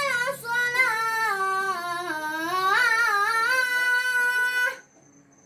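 A boy's voice chanting solo in long held notes that waver and slide in pitch, breaking off near the end.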